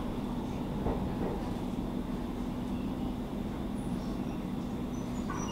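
Stockholm metro (tunnelbana) train running, heard inside the passenger car: a steady rumble from the wheels and running gear with a constant low hum.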